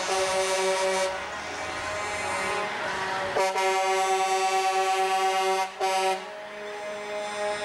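Semi truck's air horn blowing long, steady blasts: one ends about a second in, and another starts with a quick bend in pitch about three and a half seconds in and holds for about three seconds.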